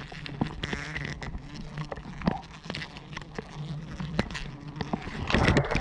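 Giant honey bees (Apis dorsata) buzzing close around the climber, over many small knocks and scrapes of hands and gear against the tree branches, with a louder rustle near the end.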